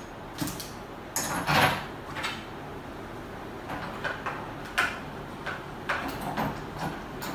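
Irregular clicks, knocks and scrapes of a brush cutter's debris guard being fitted and clamped onto the shaft near the blade head, the loudest cluster about a second and a half in.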